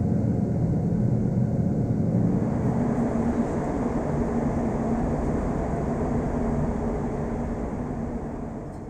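Ventilation system running: a steady low rumble of moving air with a faint hum in it, fading out near the end.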